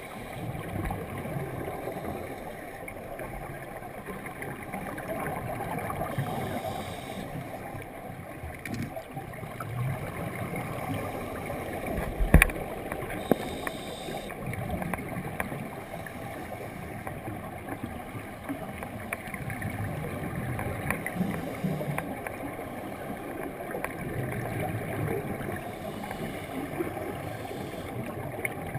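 Muffled underwater sound through a GoPro housing: a scuba diver's regulator breathing and exhaled bubbles, swelling every four to five seconds, with one sharp knock about twelve seconds in.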